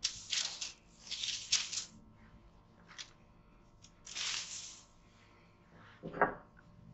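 Baking paper rustling and sliding over a wooden worktop in several short brushes, then one soft thud near the end.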